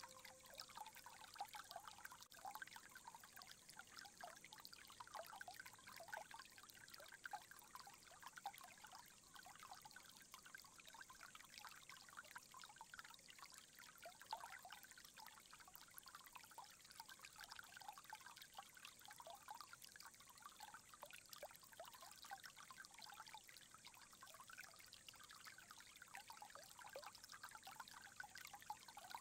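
Faint, steady trickle of water in a standing stone tsukubai basin, with many small splashing flickers.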